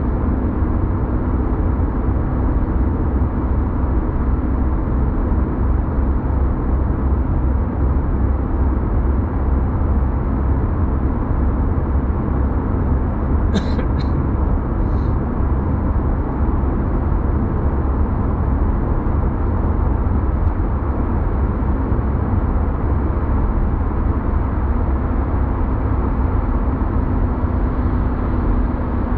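Steady low rumble of road and engine noise heard from inside a car's cabin driving at speed through a road tunnel. A few brief clicks sound about halfway through.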